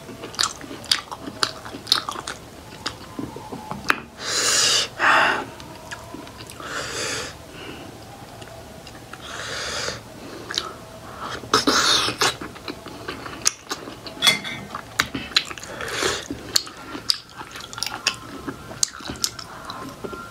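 Close-miked chewing of steamed buffalo-meat momos, with many wet mouth clicks and lip smacks and a few longer breathy sounds between bites.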